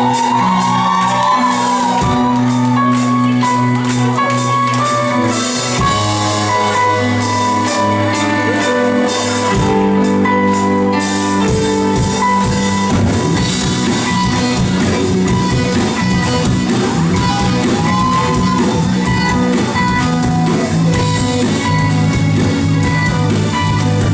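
Live rock band playing: electric guitar, bass and drums, with cymbals crashing through the first half.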